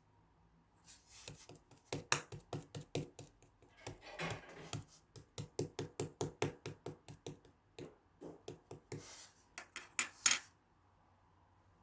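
A rapid series of light taps and clicks, a few a second, with a couple of brief scraping sounds among them, stopping about ten and a half seconds in.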